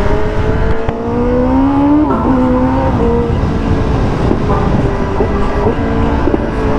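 Kawasaki ZX-10R inline-four superbike engine accelerating under way. Its pitch climbs steadily, drops sharply at an upshift about two seconds in, then holds fairly level with small rises and falls.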